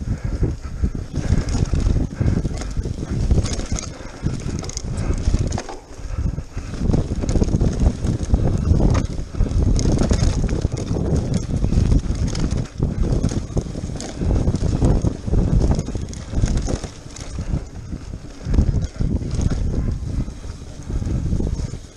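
Mountain bike ridden along a muddy dirt-and-rock singletrack, heard from a camera on the bike or rider: a continuous rough rumble of tyres and frame jolting over the bumps, mixed with wind on the microphone, surging and easing irregularly.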